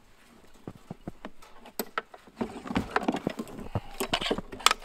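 Knocks, clunks and scraping as a chainsaw is lifted and pulled out of a snowy UTV cargo bed. The clatter is sparse at first and grows busier about halfway in, with a sharp click near the end.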